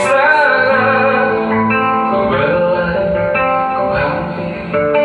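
A song: acoustic guitar playing under a voice singing.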